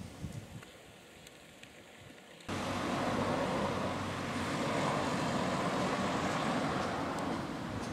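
Steady road traffic noise from cars on the road, cutting in abruptly about two and a half seconds in after a quiet opening.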